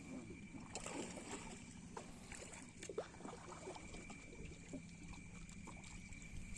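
A boat's motor running steadily, heard faintly as a low hum with a thin high whine, with small scattered knocks and clicks.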